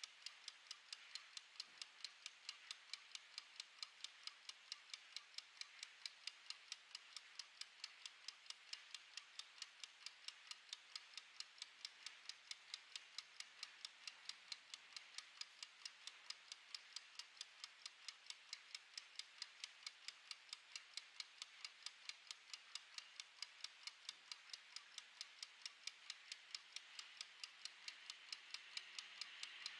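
Mechanical wind-up kitchen timer ticking: a faint, fast, perfectly even tick-tock of its clockwork escapement, several ticks a second, as it counts down.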